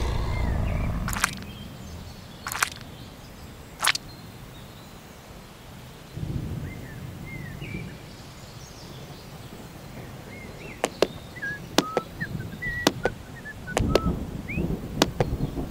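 Outdoor ambience: scattered short bird chirps and a series of sharp clicks over a low rumble, the clicks and chirps bunching together in the last few seconds.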